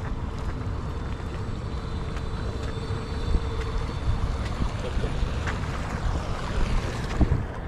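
Wind buffeting the microphone outdoors, a steady low rumble that rises and falls, with a few faint ticks.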